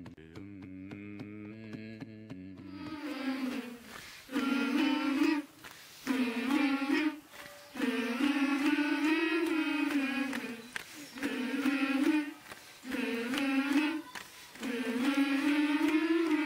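Soft instrumental music with a steady repeating pattern for about three seconds, then voices singing unaccompanied in short phrases separated by brief pauses.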